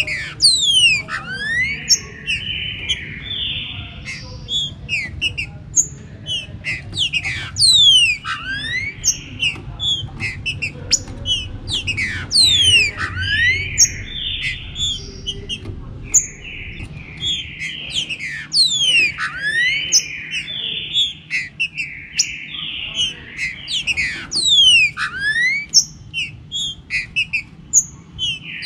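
Green-winged saltators (trinca-ferro) singing and calling in a dense, overlapping chorus: short whistled phrases and steep falling whistles repeat every second or two, over a faint low rumble.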